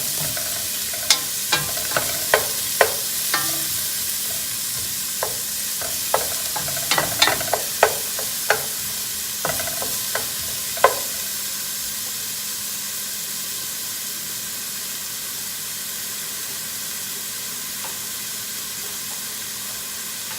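Garlic and onion sizzling in hot cooking oil as they are stirred, with sharp clicks and knocks against the pan over roughly the first ten seconds, then steady sizzling alone.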